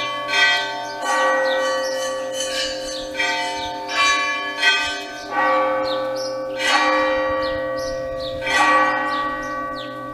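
Church bells of an Old Rite Orthodox church ringing: several bells of different pitch struck in an uneven pattern, each stroke ringing on into the next, the ringing dying away near the end.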